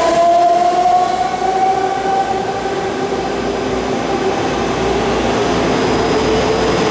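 BART trains' electric propulsion whine, rising in pitch for the first second or so, then giving way to a steadier, lower hum and rumble as another train rolls in toward the platform.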